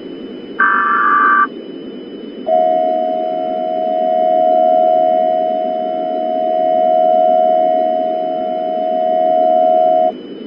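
Emergency Alert System tones: a short burst of screechy digital header data, then about a second later the steady two-tone attention signal, held for about seven and a half seconds before cutting off. A constant low static hiss runs underneath.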